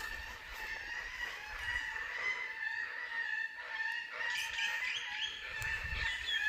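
Several currawongs calling over one another, with a held high note running through and busier calling in the second half.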